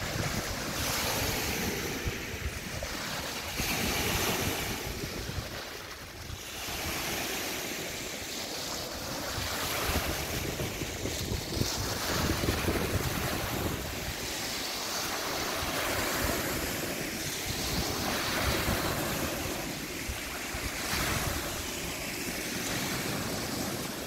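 Small waves breaking and washing up a pebble beach, the surf swelling and ebbing every few seconds. Wind buffets the microphone underneath.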